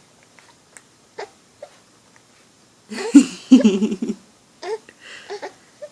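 A few short, soft hiccups, then a louder burst of vocalising about three seconds in.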